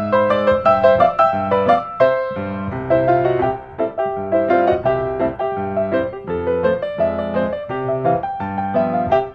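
Background piano music, a quick, even run of notes.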